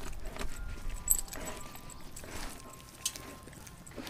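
Light metallic clinks from a Doberman's collar tags, a few times, as she stops gnawing a frozen raw pig's foot and lifts her head.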